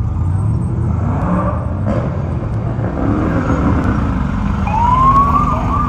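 Off-road race vehicles, trophy trucks and a race buggy, driving slowly past with their engines running in a deep, steady drone. Near the end a siren starts wailing over them, rising and falling.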